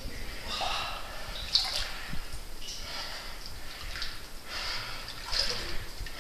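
Cavers crawling through a low, wet passage: splashing and scraping of bodies and suits moving over wet rock, in irregular bursts about once a second.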